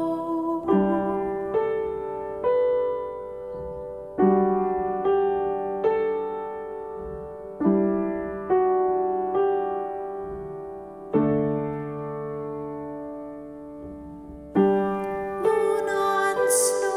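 Instrumental music: a slow, gentle piano-sounding keyboard part. Chords are struck mostly in groups of three, each left to ring and fade, and one is held for about three seconds past the middle.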